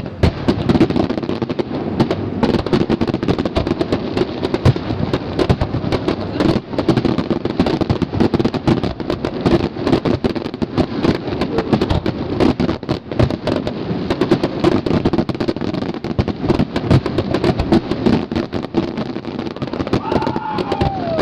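Aerial fireworks display in a dense barrage, shells bursting and crackling in rapid succession with no letup.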